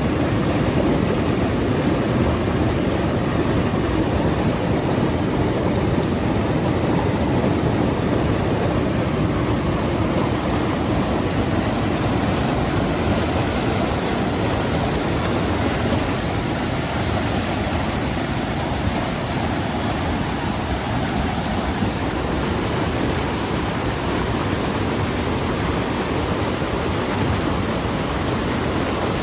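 Waterfall: water falling and splashing as a steady, loud rush.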